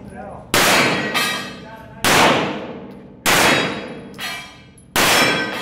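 Four pistol shots, spaced about one to two seconds apart, each ringing on in a long echo off the concrete walls of an indoor range.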